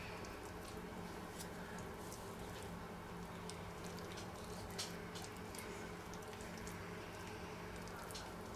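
Faint, soft squishing and scraping of a silicone spatula spreading a thick, sticky cheese mixture over the top of a layered tortilla bake in a springform pan, with a few small clicks, the clearest about five seconds in. A steady low hum runs underneath.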